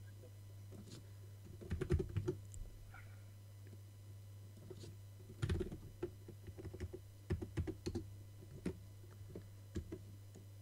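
Computer keyboard typing in short bursts of keystrokes with pauses between them, over a steady low hum.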